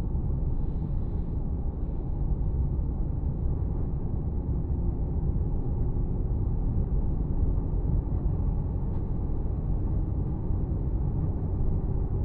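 Steady low rumble of a moving road vehicle heard from on board: engine and tyre noise at an even level, with a faint steady hum joining about halfway through.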